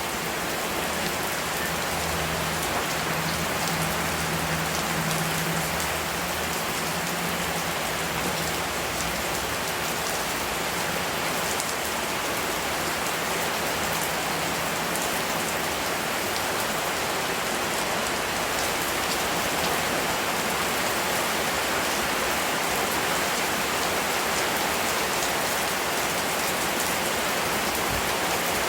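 Steady rain falling, a constant hiss with scattered drop ticks on a surface. A faint low hum runs under it during the first half.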